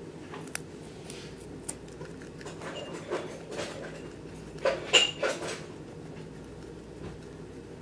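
Guinea pig biting and chewing a piece of raw carrot: irregular crisp crunches, loudest in a cluster about five seconds in.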